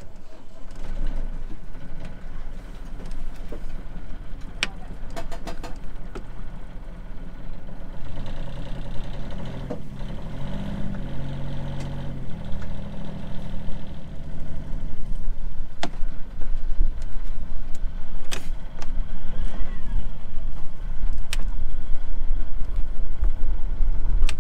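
Sailing yacht's inboard diesel engine running at idle, its note changing for a few seconds partway through. Occasional sharp clicks and knocks come from the single-lever engine control being worked.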